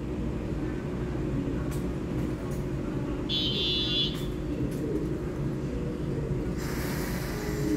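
Steady low hum of a TRA EMU3000 electric multiple unit standing at the platform before departure. A short shrill high tone sounds about three and a half seconds in, and a hiss sets in near the end as the train gets ready to pull out.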